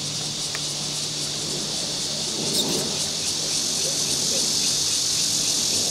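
Ching Yee CY50 power tiller's small engine running steadily at a distance while it ridges soil between crop rows, heard as a low hum under a steady high hiss.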